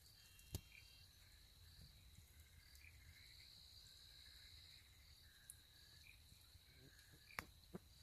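Faint night chorus of crickets and other insects: a steady high trill with repeated short chirps over it. A few sharp ticks stand out, one about half a second in and two near the end.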